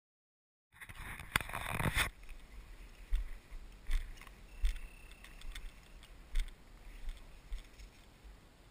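Footsteps and brushing of a walker moving through low heath and birch scrub, picked up by a body-worn camera: the sound starts about a second in with a burst of rustling and handling noise, then steady footfalls with low thumps.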